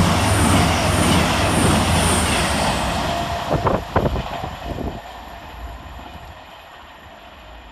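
CrossCountry Class 221 Super Voyager diesel multiple unit passing at speed: a loud rush of train noise that dies away over the first few seconds, with a few sharp clicks about four seconds in.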